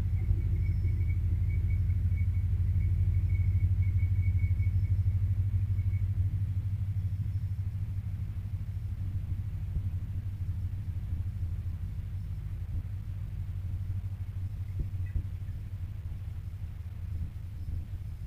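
Diesel locomotive engine running with a steady low rumble as the locomotive moves slowly past, loudest for the first six seconds and then fading. A thin high whine sounds over it for the first six seconds.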